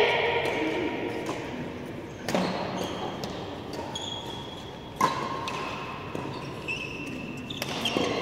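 Badminton rally: rackets strike the shuttlecock with sharp cracks every few seconds, about three times, and court shoes squeak briefly on the mat between hits, with the hall's echo after each hit.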